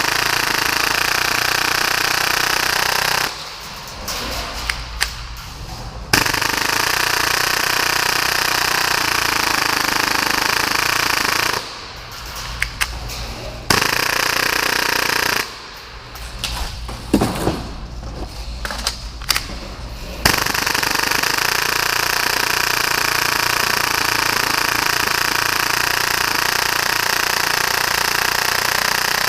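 Full-auto Tokyo Marui Hi-Capa airsoft pistol firing at about 30 rounds a second in long, continuous bursts. It stops briefly about 3, 12 and 15 seconds in, with only scattered clicks in those breaks, then fires steadily on to the end.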